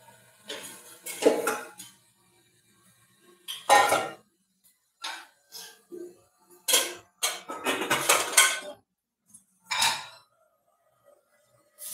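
Dishes and cutlery clattering as they are handled: short, sharp clinks and knocks in irregular bursts, with a denser run of them a little past the middle.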